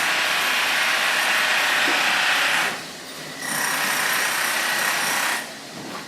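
A construction power tool running loudly in long steady stretches, cutting out briefly about three seconds in and again near the end.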